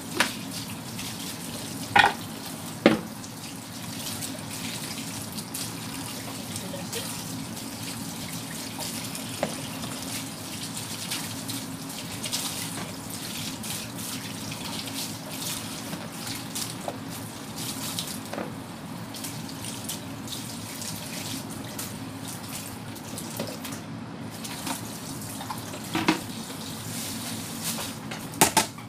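Kitchen tap running steadily into a sink as raw oxtail pieces are rinsed by hand in a plastic colander. A few sharp knocks stand out, about two and three seconds in and twice near the end.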